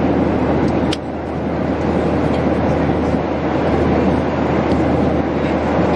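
Steady in-flight cabin noise of an airliner, the low drone of engines and airflow, with a single sharp click about a second in.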